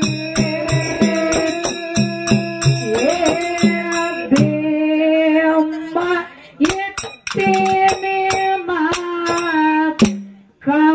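Kannada dollina pada devotional music: a singer holds long notes over a steady drum beat and clashing small hand cymbals. About four seconds in, the drum stops and the singing carries on with lighter cymbal strokes. There is a brief pause near the end.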